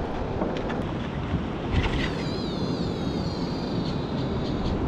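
Wind buffeting the microphone over the sound of surf washing under the pier, with a few light clicks. About two seconds in, a wavering high whine comes in and lasts about two seconds.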